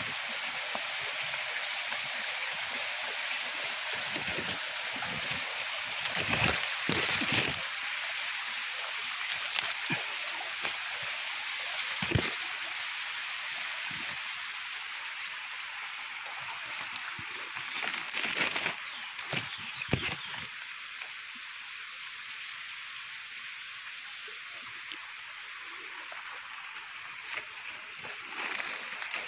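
Creek water running steadily, with occasional thumps and rustles of footsteps and brush; the water grows fainter in the second half.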